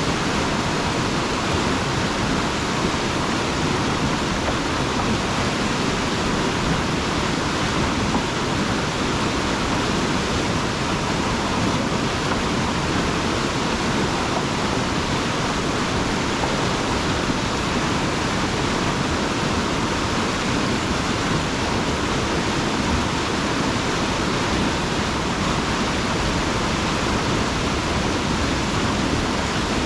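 Beaver-pond water rushing through a large culvert: a steady, even rush of water with no change and no engine heard.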